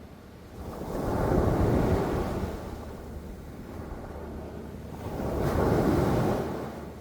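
Sea waves washing in, two surges a few seconds apart that each swell and die away, over a low rumble of wind on the microphone.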